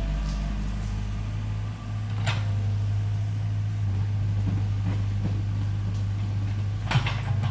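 Excavator engine running steadily with a low hum, with two sharp knocks, about two seconds in and near the end.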